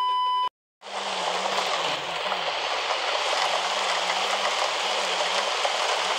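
A brief electronic beep at the start, then heavy rain falling with a steady, even hiss.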